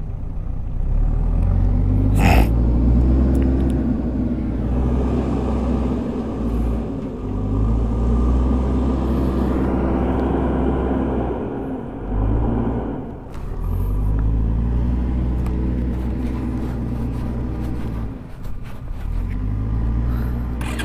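Bajaj Pulsar 220F single-cylinder motorcycle engine running at a standstill, its pitch rising and falling a few times with the throttle. There is a sharp knock about two seconds in.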